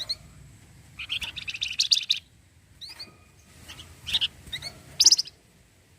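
Javan fulvetta (flamboyan) singing. About a second in it gives a fast chattering trill lasting a little over a second, then several short high notes.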